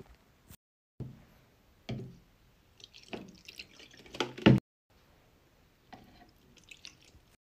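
Liquid laundry detergent being poured into a washing machine's plastic detergent drawer, with splashing and a few thumps of plastic bottles and a dosing cap being handled; the loudest thump comes about four and a half seconds in. The sound drops out briefly twice.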